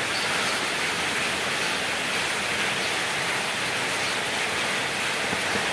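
Steady rain falling, an even hiss that holds at one level without breaks.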